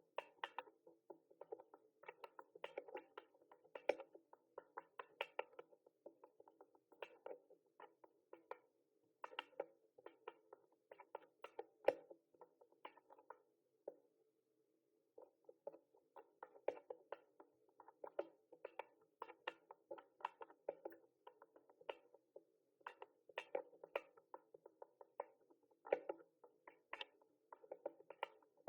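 Typing on a mechanical keyboard: quick, irregular runs of key clicks, with a pause of about a second and a half around the middle.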